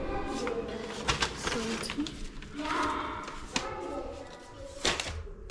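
Children's voices in the background, calling and chattering on and off, with a louder call near the middle.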